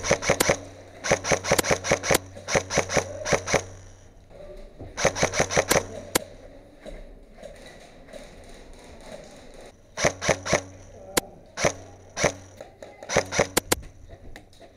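Airsoft electric guns firing in quick strings of shots, several volleys each about a second long with short pauses between. There is a quieter stretch in the middle, and the volleys pick up again from about ten seconds in.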